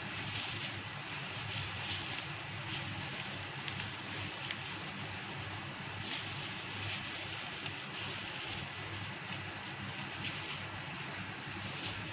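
Steady background hiss, with faint rustling and squishing from plastic-gloved hands packing mince filling into slit bitter gourds.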